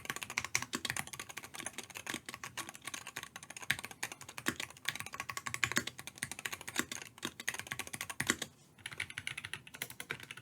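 Mechanical keyboard being typed on in a fast, continuous run of clacking keystrokes. There is a brief pause about eight and a half seconds in, then typing starts again with a brighter, clickier tone.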